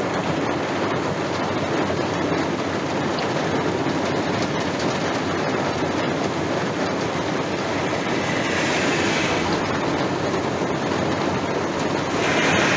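Heavy thunderstorm rain falling hard and steadily, a dense rushing hiss with scattered sharp taps, briefly heavier about eight seconds in and again near the end.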